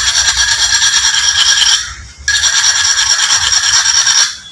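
A screwdriver shaft scraped rapidly back and forth inside a metal tube, a loud, ringing metallic scrape. It comes in two long bouts with a short break about two seconds in.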